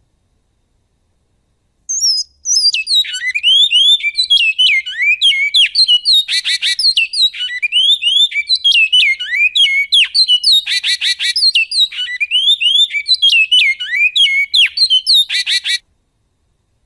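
Great-billed seed finch (bicudo) singing one long goiano-style song, starting about two seconds in: a fast run of quick, mostly falling whistled notes, broken by short buzzy rattles three times, ending abruptly about a second before the end.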